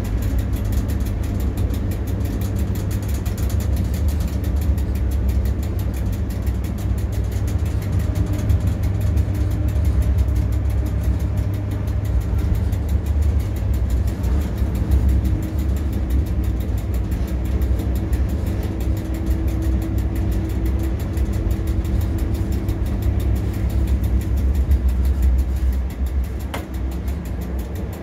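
Steady low rumble in the driver's cab of a MÁV V63 electric locomotive running, with a faint steady hum that strengthens in the middle and a single sharp click near the end.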